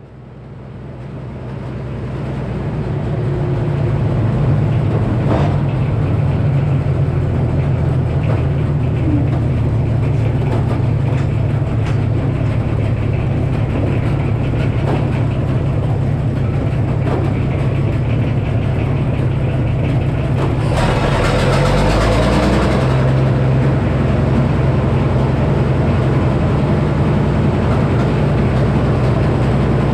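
Sawmill running: the Minneapolis Moline HEB six-cylinder gas engine drones steadily at low revs, driving the Frick circular saw. The sound fades up over the first few seconds, and a louder, brighter hiss joins about two-thirds of the way through.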